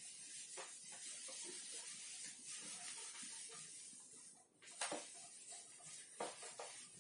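Whiteboard being wiped clean: a faint, steady rubbing hiss of strokes across the board. It breaks off a little past halfway with a knock, then shorter wiping strokes follow.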